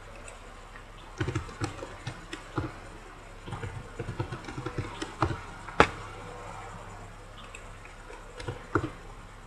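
Irregular clicking of a computer keyboard and mouse being operated, in scattered clusters with a few louder clicks, over a faint steady low hum.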